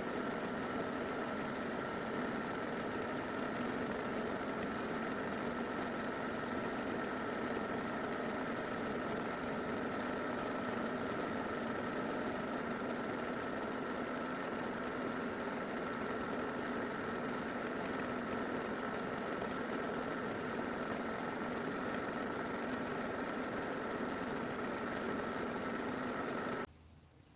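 Sewing machine running continuously during free-motion stipple quilting, sped up three times into a fast, even whir. It cuts off suddenly shortly before the end.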